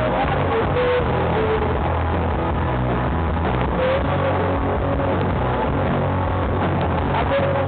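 Rock band playing loud live music, picked up by a poor, overloaded camera microphone: a heavy low rumble with a few held notes above it.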